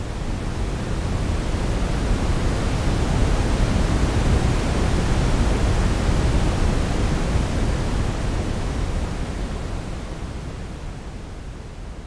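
Simulated ocean-wave sound, made of shaped noise. It swells over the first three or four seconds, holds, then slowly ebbs away toward the end, like one wave surging in and drawing back.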